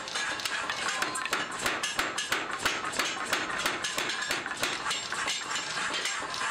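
Hand hammer striking a red-hot steel cleaver blank on an anvil: a quick run of sharp metallic blows, several a second.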